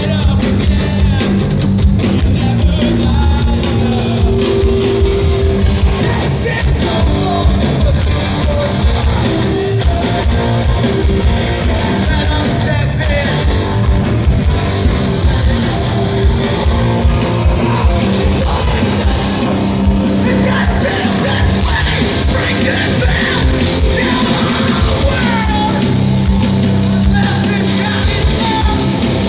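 Loud live heavy rock band playing, with distorted guitars, drums and shouted vocals.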